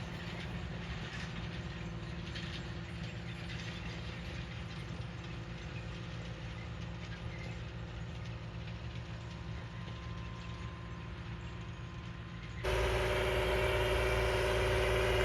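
Farm tractor running steadily while pulling a do-all field cultivator, with a continuous mechanical rattle and clatter. About 13 seconds in it changes suddenly to a louder, closer, steady engine drone.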